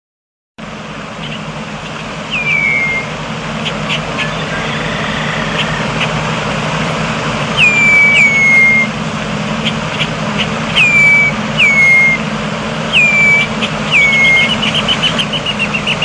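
Red-winged blackbird calling: a whistled note that drops sharply and then holds a steady pitch, about seven times, with a quick chattering run near the end. Under it runs a steady low mechanical hum.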